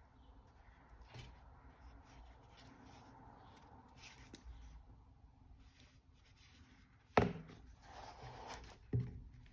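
Quiet handling of a watch and its cushion, then two knocks, the louder about seven seconds in and a second just before the end, as the cushioned watch is set down into its presentation box.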